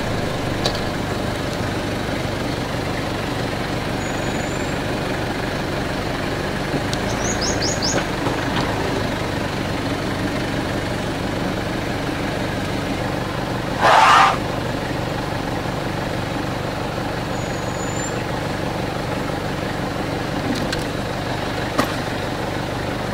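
Vehicle engine idling steadily, with a few short bird chirps and one short, loud rush of noise about fourteen seconds in.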